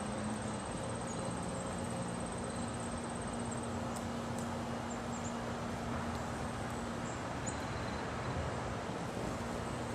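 Steady outdoor ambience: a constant low hum and hiss, with a few faint, short, high chirps near the middle.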